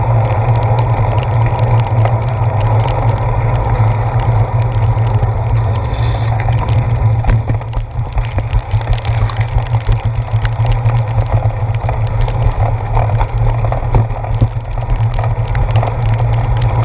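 Steady, loud rumble of wind and rain on a handlebar-mounted GoPro Hero 4 while a bicycle rides through heavy rain, with many quick clicks of raindrops striking the camera. The noise eases briefly about halfway through.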